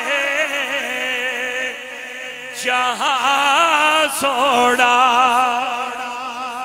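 A man's voice singing a Punjabi devotional verse (naat) in long, ornamented held notes with a wavering vibrato. The singing dips near the middle, and a new phrase opens with a rising swoop.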